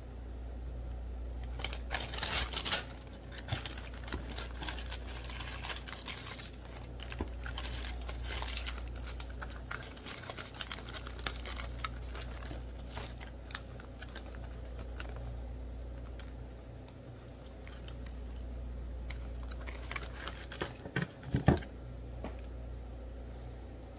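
Plastic zip-top freezer bag crinkling and rustling as it is handled and filled with shaved ice, with irregular small clicks and scrapes. A sharper knock about three quarters of the way through, over a low steady hum.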